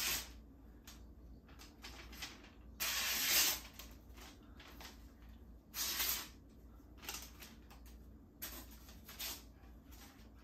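Freshly whetstone-sharpened kitchen knife slicing through a hanging sheet of magazine paper: about five short, hissing cuts, the longest about three seconds in, with paper rustling between them. The paper test shows how keen the new edge is.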